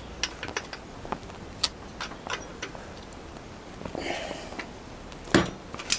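Ratchet wrench on an engine mounting bolt: scattered sharp clicks as the handle is worked, a short breathy sound about four seconds in, and one loud crack about five and a half seconds in.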